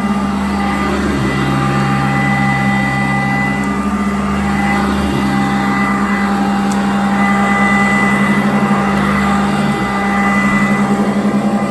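Sanitaire vacuum cleaner running steadily, its motor giving a loud, constant hum with a whine over the rush of air. The lower part of the hum shifts a little now and then.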